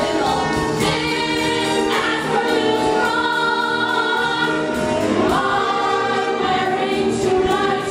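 Chorus of women singing held notes in harmony over musical accompaniment, with a rising sweep in the melody about five seconds in.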